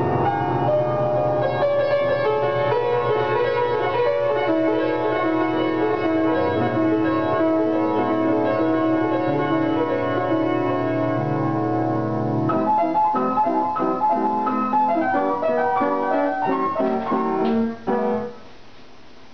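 Piano played with sustained chords over a held bass, changing about two thirds of the way through to lighter, separate notes in the middle range, then stopping suddenly near the end.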